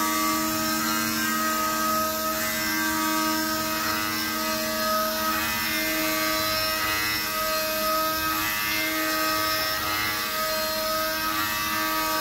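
Rottler CNC machining centre's spindle and cutter porting an aluminium intake manifold runner under flood coolant: a steady machining whine of several held tones that break off and return every second or two as the tool moves through the cut.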